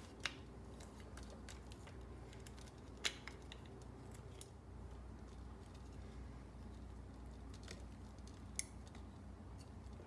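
Faint small plastic clicks and taps as a snow blower's electric starter-switch housing and its wires are handled and pressed into place. Three sharper clicks stand out: just after the start, about three seconds in, and near the end.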